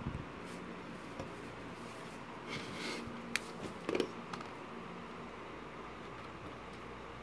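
Soft crinkling of a clear plastic bag and small clicks as solder wire is taken out and handled, over a steady faint hum.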